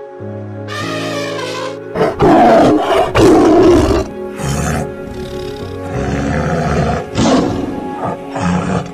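Tiger roaring and growling in several loud rough bursts, the longest about two seconds in, with a shorter call about a second in. Background music plays throughout.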